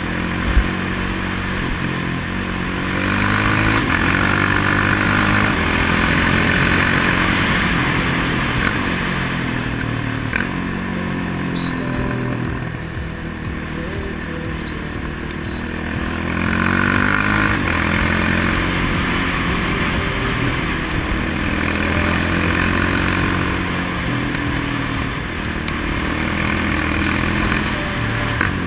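Quad bike (ATV) engine running under way on a dirt road, its pitch rising and falling with the throttle, over a steady rushing noise of wind on the camera. A sharp knock sounds just after the start and another near the end.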